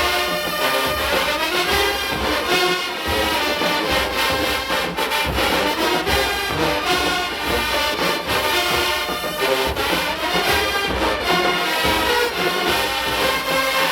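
Show-style college marching band playing loud brass (trombones and trumpets) over a steady drumline beat.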